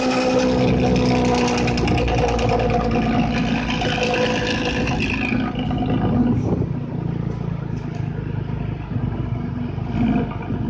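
Diesel engine of an intercity bus running with a deep, snoring growl, the sound bus spotters call 'ngorok'. It is louder and higher-pitched at first, then eases to a lower, quieter hum about five seconds in.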